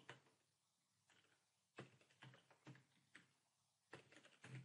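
Faint computer keyboard keystrokes: a handful of scattered, irregular key clicks as a terminal command is typed and entered.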